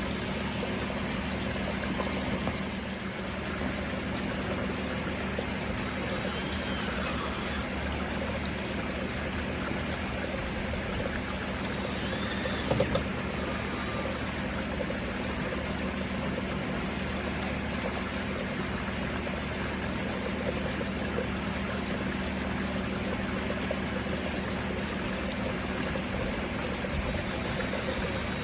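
Koi pond water flow trickling and splashing steadily, with a low steady hum under it.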